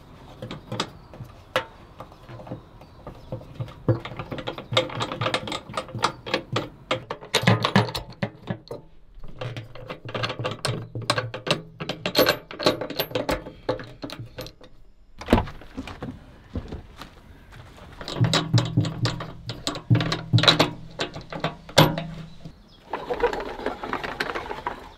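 Quick runs of clicks, knocks and rattles, with short pauses, as gear is handled and set up in a campervan.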